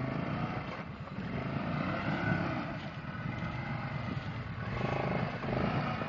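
ATV engine revving under load, its pitch rising and falling, as the quad struggles to climb out of deep water where it is stuck.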